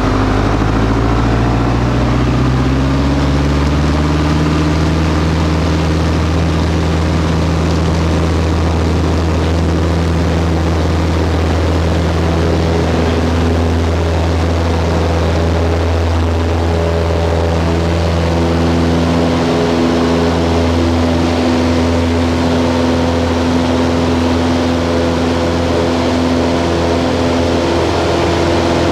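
Piper Super Cub's piston engine and propeller run up to takeoff power, rising in pitch over the first few seconds, then hold a steady, loud drone through the takeoff roll and climb-out. Heard from inside the cockpit.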